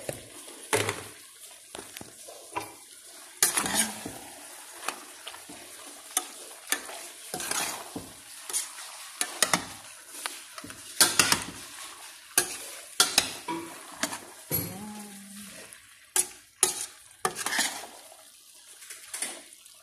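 A utensil stirring diced bell peppers and chicken in a stainless steel pan, with irregular scrapes and clinks against the metal, over a steady sizzle of the food frying.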